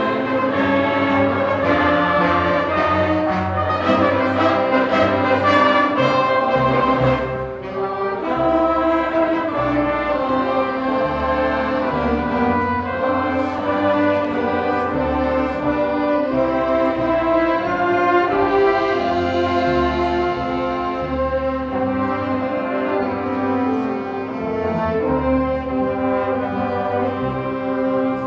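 Live music: a choir singing with an instrumental ensemble accompanying, sustained chords moving from note to note, with a brief drop in loudness about seven seconds in.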